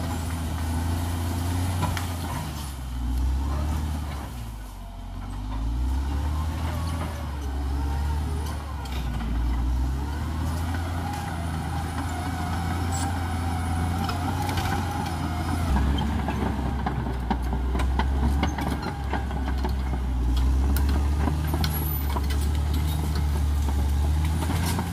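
Caterpillar D6R XL bulldozer's diesel engine running steadily, with a dip in revs about four seconds in that then picks back up, and scattered clanks and knocks throughout.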